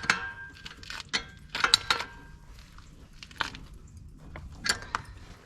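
Hand tools clicking and clinking on metal, about five separate sharp strokes, some ringing briefly, as the chain-adjuster bolts on a 125cc ATV's rear axle are tightened.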